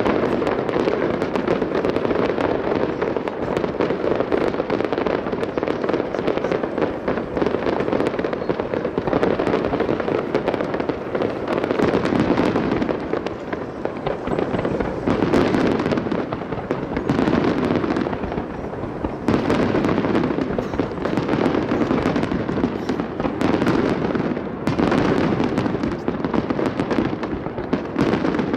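Aerial fireworks display firing in rapid succession: a dense, continuous run of booms and crackles, easing briefly a few times before picking up again.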